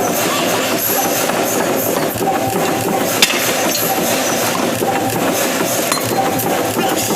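Steady forge-shop noise with light metallic clinks, and one sharp metal clink about three seconds in.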